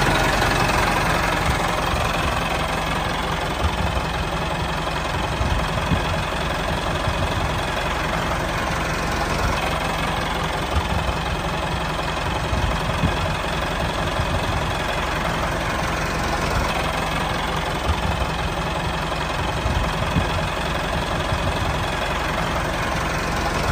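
Homemade miniature tractor running steadily as it drives, an engine-like sound with a fast, irregular low pulsing that keeps an even level throughout.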